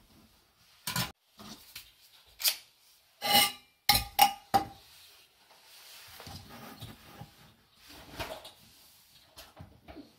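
Sharp metal clicks and clinks as a small gas canister stove's folding pot-support arms are swung out and locked, a couple with a short metallic ring, bunched in the first half. After that come softer rubbing and handling noises of the metal stove and cookware.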